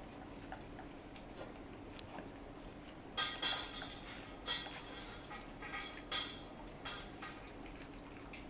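A run of about seven short, bright clinks and jingles at uneven intervals, starting about three seconds in and stopping a little after seven seconds, over a faint steady hum.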